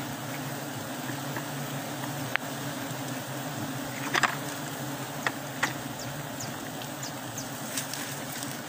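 A honeybee colony buzzing in a steady low hum as its comb is cut away, with a few short sharp clicks and taps scattered through it.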